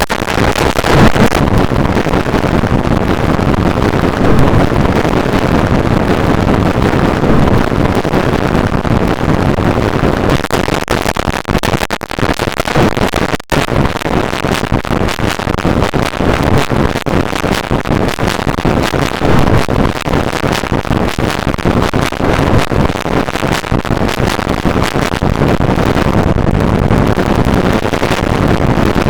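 Android phone alarm tone, digitally layered and processed over and over into a loud, dense, distorted wall of noise with no clear melody left. It cuts out briefly about halfway through.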